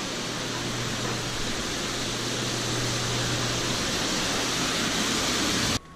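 Steady rushing of water circulating and aerating in live-bait shrimp tanks, with a steady low hum underneath. It cuts off suddenly near the end.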